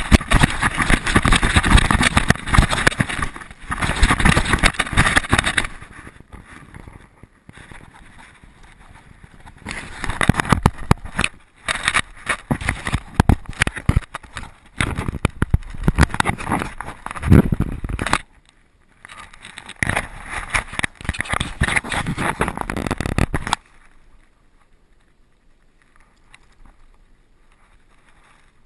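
Handling and wind noise from an action camera strapped to a running dog's harness: rough, jolting buffeting with scraping and knocking as the dog moves. It comes in long loud stretches, with quieter spells in between, and drops to a faint rustle a few seconds before the end.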